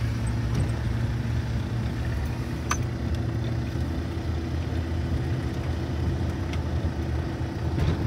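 Steady low rumble of a car driving, heard from inside the cabin: engine and road noise, with a single light click about three seconds in.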